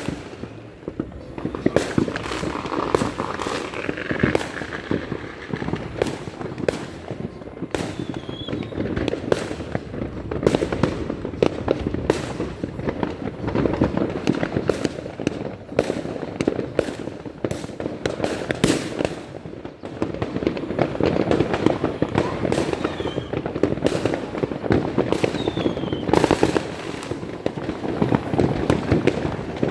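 New Year fireworks and firecrackers going off without pause: a dense stream of bangs and pops with crackling between them.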